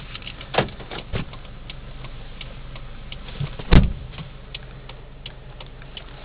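Several light knocks and ticks over a steady low hum, with one loud thump a little after halfway through.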